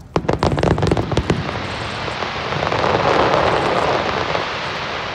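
Aerial fireworks shells bursting in a rapid volley of sharp cracks lasting about a second. A dense crackling follows, swelling and then slowly fading.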